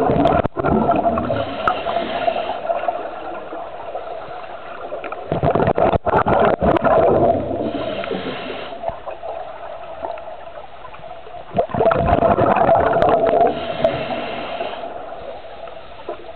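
Scuba regulator breathing heard underwater: three gurgling bursts of exhaled bubbles about six seconds apart, each followed by a short hiss of the next breath drawn through the regulator.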